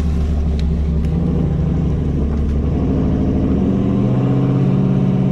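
Turbocharged 6.0-litre V8 of a GMC 2500HD pickup running under way, its pitch rising about two-thirds of the way through as the truck accelerates.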